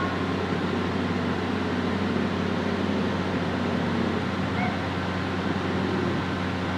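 Diesel engine of a Bauer GB 50 diaphragm-wall grab running steadily, a constant low hum with no sudden changes.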